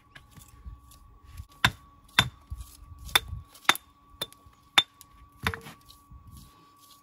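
A tool knocking on stone: seven sharp, clinking strikes spaced about half a second to a second apart, in the middle of the stretch.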